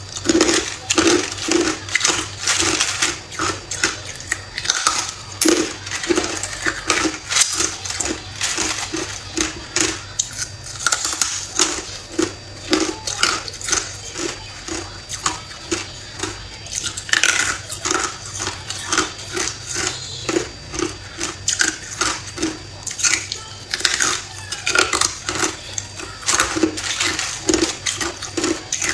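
Hard ice being chewed and crunched between the teeth, a steady run of crisp cracks and crackles at about two chews a second.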